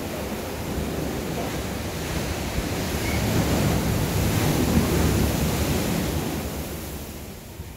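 Ocean surf breaking on the shore: a wave builds, crashes around the middle, then washes out and fades near the end.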